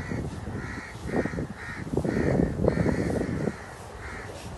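Crows cawing over and over, about two calls a second. Under them runs a low rumble on the microphone, the loudest sound until about three and a half seconds in.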